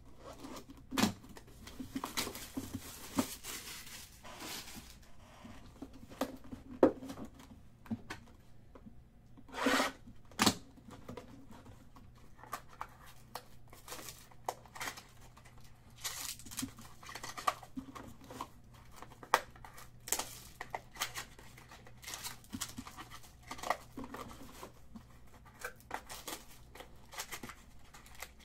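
Sealed box of trading cards being opened and its packs handled: wrapping cut and torn, with crinkling and many small taps and clicks of cardboard. A longer tearing sound comes about ten seconds in.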